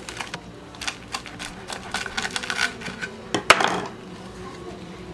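Knife cutting through a crumb-coated, deep-fried bread chicken patty, its crispy, crunchy crust crackling in a run of sharp clicks. The loudest crack comes about three and a half seconds in.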